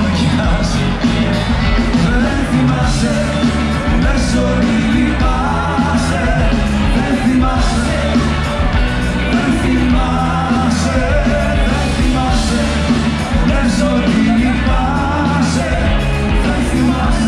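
Live rock band playing loud, with a male lead vocalist singing over electric guitars and drums, heard from within the crowd.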